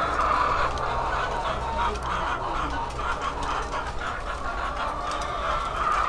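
A flock of caged laying hens clucking, many birds at once in a dense, continuous chorus.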